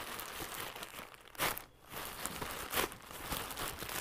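Plastic courier mailer bag crinkling and rustling as hands pull at it to tear it open, with a sharp, louder crackle about a second and a half in and another near the end.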